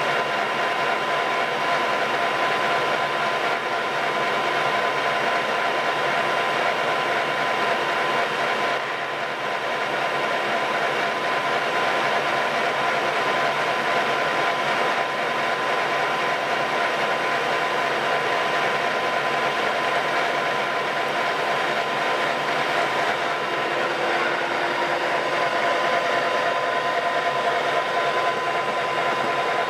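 Colchester Master 1200 lathe running with the Z-axis (longitudinal) power feed engaged, the carriage travelling along the bed: a steady mechanical gear whine with several held tones.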